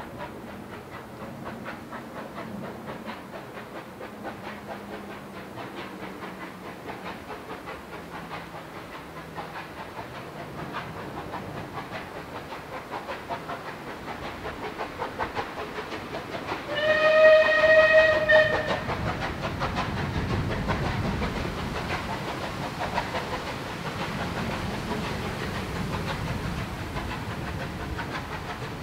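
An approaching steam locomotive working hard, its rhythmic exhaust beats slowly growing louder. A little past halfway it sounds its whistle once, a steady note lasting about two seconds, which is the loudest sound.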